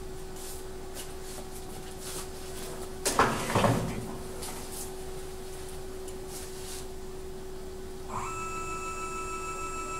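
A steady hum from the Denford Micromill 2000 CNC mill, with a brief loud rustling noise about three seconds in. About eight seconds in, the Z-axis stepper motor starts a steady whine as the cutter is jogged down toward the workpiece to set the Z offset.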